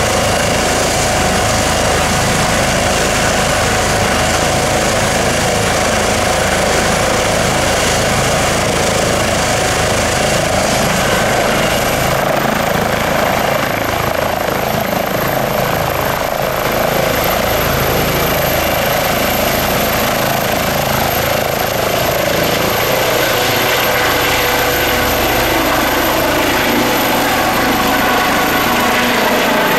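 Airbus H135 P3 helicopter, with twin Pratt & Whitney PW206B3 turboshaft engines, running loudly with its rotors turning. About twelve seconds in, the high turbine whine rises in pitch and then holds as the engines spool up to take-off power. The helicopter lifts off in the second half.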